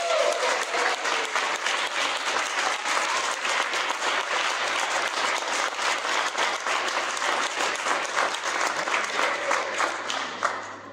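Audience applauding after a jazz ensemble's piece ends, the clapping dying away near the end.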